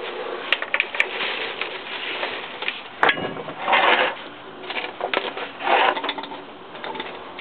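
Irregular handling noise of work under a van: plastic carrier bags crinkling, with sharp clicks and scrapes, and two longer noisy bursts about four and six seconds in.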